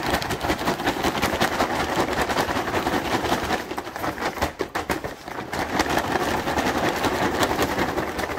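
A bag of hot caramel-coated popcorn being shaken: continuous rustling of the bag and rattling of the popcorn inside, with a brief lull a little before halfway.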